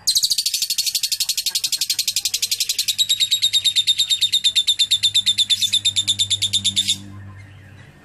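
Lovebird giving a long, fast chattering trill (ngekek) of rapid, even high-pitched pulses, lasting about seven seconds before it cuts off.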